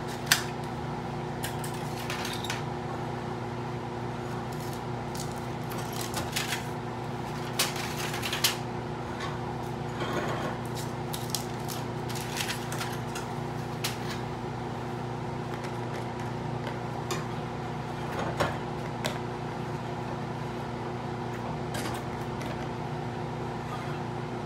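Steady hum of a laminar flow hood's blower fan, with scattered short clicks and crinkles as aluminium foil is peeled off glass grain jars and the jars are handled on a metal rack.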